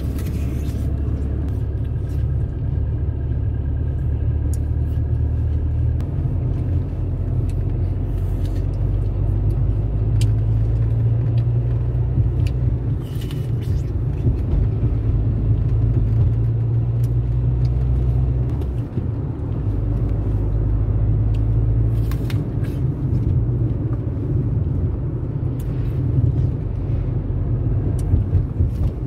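Steady low rumble of a car's engine and road noise heard from inside the cabin while driving, with a few changes in the engine note and scattered faint clicks.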